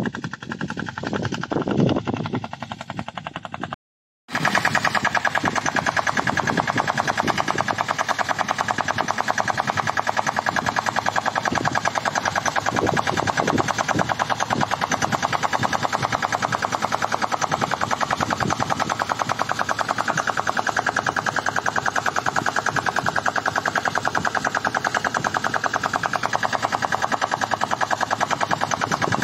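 Homemade sanedo mini tractor's engine running steadily with a rapid, even chugging while it pulls an interculture bar between groundnut rows. It comes in after a few seconds of background music and a sudden cut.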